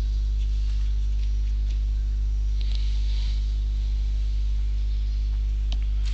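Steady electrical mains hum, a low buzz with its overtones, and a few faint clicks.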